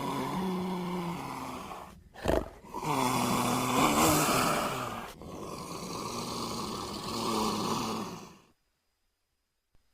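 Big cat growling: three long growls with a short, sharp snarl between the first two, stopping abruptly about eight and a half seconds in.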